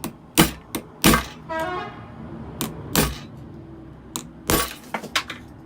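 The plastic casing of an Apple 87W USB-C power adapter cracking and snapping as it is cut and pried open with a scalpel: a series of sharp cracks, with a short squealing creak about one and a half seconds in.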